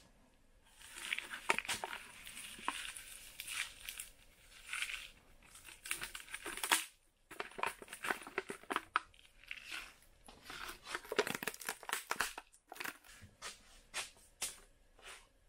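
Packaging of a Cup Noodles instant noodle cup being torn open and crinkled: irregular crackling and rustling with many sharp crackles, in bursts.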